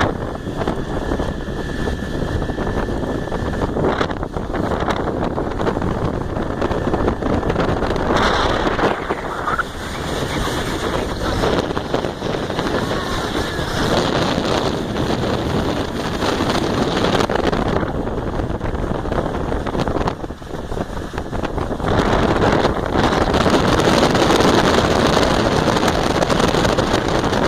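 Small motorboat with a Johnson 25 HP outboard underway: wind buffeting the microphone over the rush of water and the motor. It gets louder near the end.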